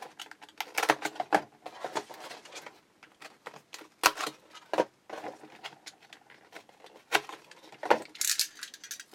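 Hands handling cardboard and plastic trading-card packaging, an irregular run of sharp crinkles, taps and clicks as packs are worked out of their holders.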